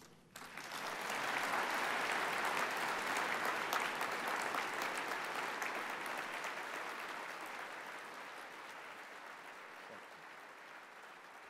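Large audience applauding after a speech ends, the clapping building up within the first second or so, holding, then slowly dying away toward the end.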